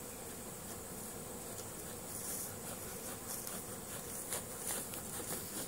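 Steady hum of a large swarm of honeybees flying about.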